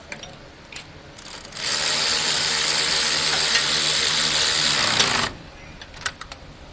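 Power impact wrench running on the steering rack's mounting bolts in one steady run of about three and a half seconds, starting about a second and a half in.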